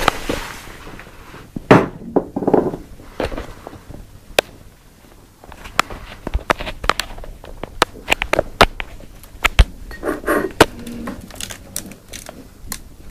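Handling noise: irregular sharp clicks and knocks, with short rustling bursts about two seconds in and again around ten seconds in.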